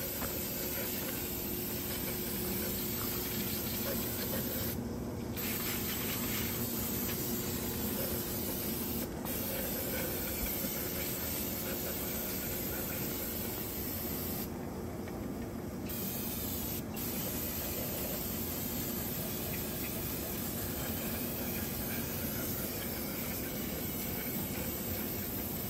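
Aerosol cleaner hissing in long sprays onto a diesel fuel tank sending unit, flushing out metal debris from a failed CP4 high-pressure pump. The spray breaks off briefly about five seconds in and again for a moment around fifteen seconds.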